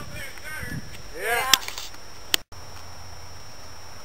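Voices reacting, with two sharp clicks about a second and a half in and just after two seconds. Then the sound cuts off abruptly into a steady low hum.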